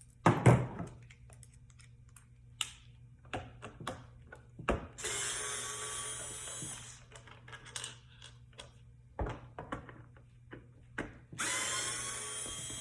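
Power drill backing Phillips head screws out of a car armrest console: the motor runs twice, about two seconds and then a second and a half, with a sharp knock just after the start and scattered clicks and knocks between the runs.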